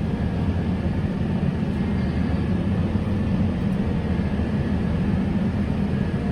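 Crop sprayer's engine running steadily while driving and spraying: an even low drone.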